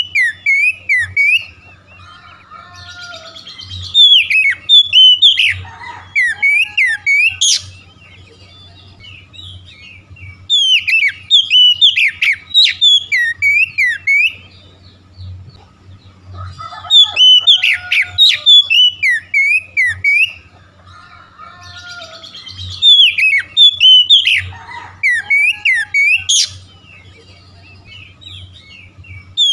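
Oriental magpie-robin (kacer) in full song: loud bursts of rapid, varied whistled and chattering notes, each a few seconds long and coming about every six to seven seconds, with softer twittering in between. This vigorous, sustained singing is what bird-keepers call gacor.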